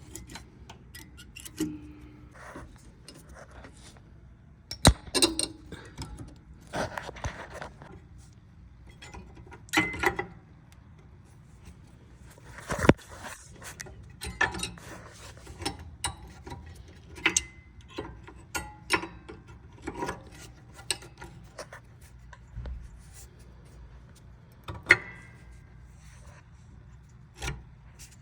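Irregular metal clicks, clinks and scrapes of new brake pads being fitted by hand into a disc brake caliper bracket, with a few sharper knocks.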